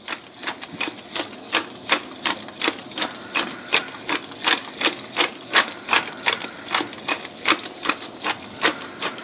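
A metal utensil stirring milk gravy in a stainless steel skillet, clicking and scraping against the pan in a steady rhythm of about three strokes a second.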